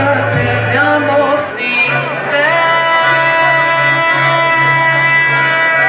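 Live forró band: a singer over accordion, guitar, bass and percussion, with a steady low pulsing beat. A long note is held from about two and a half seconds in, and two short cymbal-like hisses come just before it.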